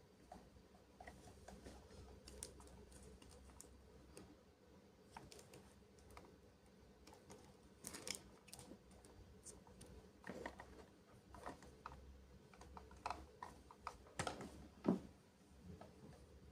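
Hands handling a toy: scattered light clicks and taps, busier in the second half, with a few louder knocks near the end.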